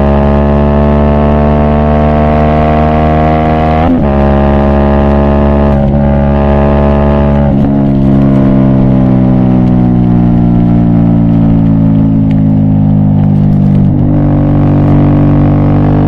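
Aprilia Shiver's V-twin engine running at a steady road-speed note. The note breaks briefly about four, six and seven and a half seconds in and again near the end, then sinks slowly in pitch through the second half.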